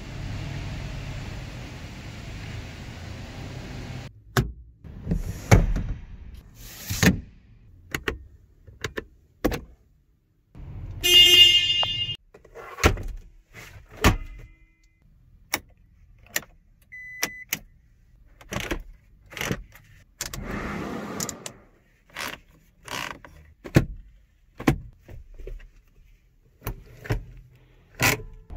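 A steady low hum for about four seconds. Then a long series of separate clicks and knocks as a hand works the cabin fittings of a 2023 Toyota Hilux single cab, among them the glovebox lid and the handbrake lever. About 11 seconds in there is a loud pitched tone lasting a second or so, and near 17 seconds a short faint beep.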